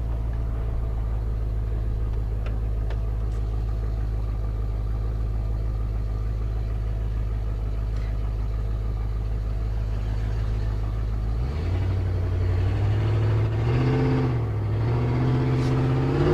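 Ford 351 Windsor V8 in a pickup idling steadily, then revving up about eleven seconds in as the truck pulls away. Near the end the engine speed dips briefly and climbs again, the point where the E4OD automatic transmission shifts hard.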